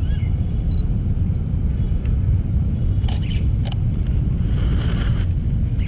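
Steady low rumble of road traffic, with a few short bird chirps at the start and two sharp clicks about three seconds in.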